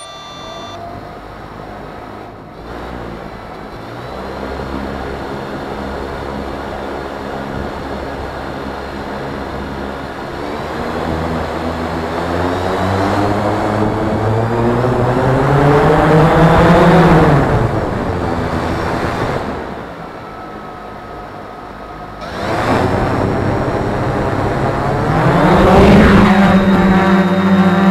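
3DR Iris+ quadcopter's electric motors and 10-inch (1045) propellers spinning up: a whine that climbs steadily in pitch and loudness, drops back about two-thirds of the way in, then rises sharply again and holds high and steady near the end.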